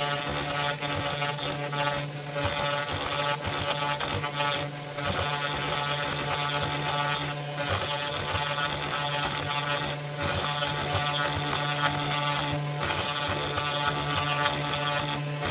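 Pandora 6050 CNC router spindle running at a steady whine while its end mill cuts a pocket into plywood. The cutting noise eases briefly about every two and a half seconds.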